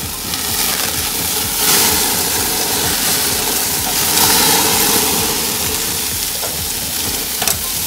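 Quail sizzling on a gas grill with fat flaring in the flames, a steady hiss with a low rumble under it that swells about two seconds in and again around four seconds. A single sharp click comes near the end.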